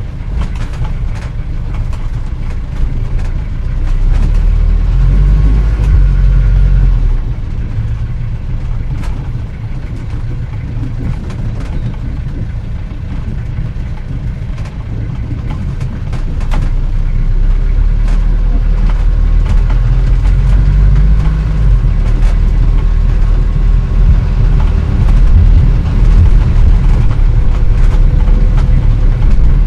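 Antique 1940s car driving, its engine running with a low rumble whose pitch rises and falls. It grows louder about four seconds in, eases off after about seven seconds, and picks up again from about seventeen seconds, with frequent small clicks and knocks.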